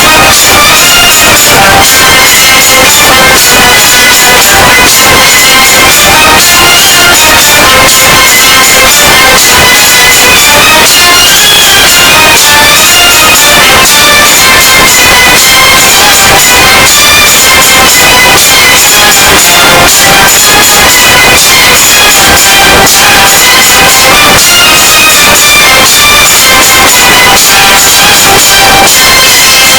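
Loud dramatic film score with a dense run of percussion strokes under a high melody line.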